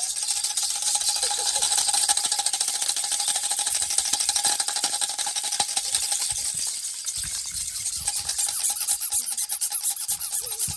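Baby rattle shaken rapidly and continuously, a dense fast rattle with a faint steady tone underneath; the shaking eases briefly about seven seconds in.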